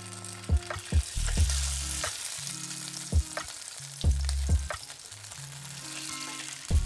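Taro cake slices sizzling as they pan-fry in oil in a non-stick frying pan, turned with chopsticks and a spatula, with a few sharp clicks. A soft bass-heavy music track plays underneath.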